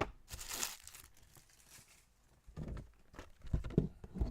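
A trading-card pack wrapper being torn open in a quick rip near the start, followed after a pause by crinkling and rustling as the wrapper and cards are handled.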